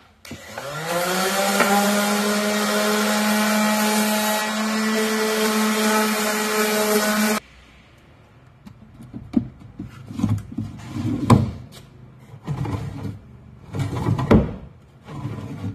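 Random orbital sander spinning up with a rising whine, running steadily on a plywood drawer box, then cutting off suddenly about seven seconds in. After that, wooden drawers sliding and knocking as they are fitted into and pulled out of a plywood cabinet.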